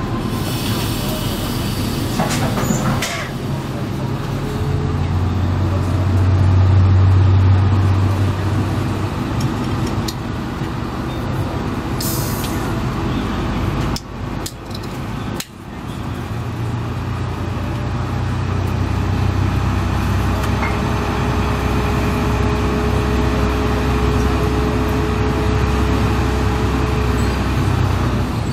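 Diesel multiple unit's underfloor diesel engine working hard as the train pulls away, heard from inside the passenger cabin. The engine note drops away for a couple of seconds about halfway through, then builds again, with two brief hisses of air early on and just before the drop.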